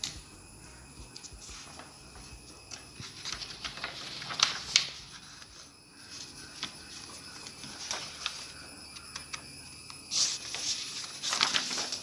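Sheets of drawing paper rustling as they are handled and laid flat by hand, in irregular crackles, with sharper ones about four and a half seconds in and again near the end.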